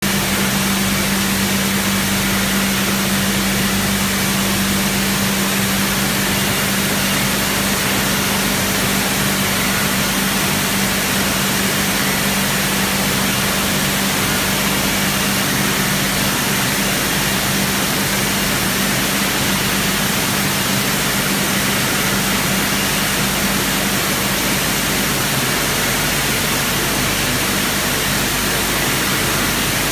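Bottle inverting (overturn) sterilizer machine running: a steady hum from its conveyor drive motors over a constant hiss. The hum fades somewhat in the last few seconds.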